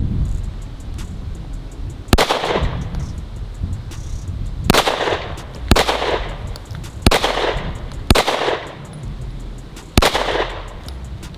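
Six 9mm shots from a Springfield Echelon 4.0C striker-fired pistol, fired one at a time at an unhurried, uneven pace, each followed by a short trailing echo.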